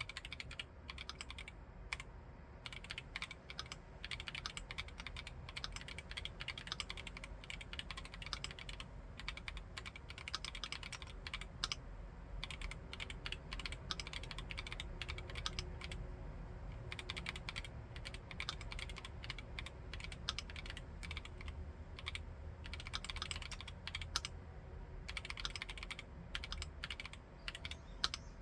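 Typing on a Keychron Q1 Knob aluminium-cased mechanical keyboard: quick runs of keystrokes with a few short pauses.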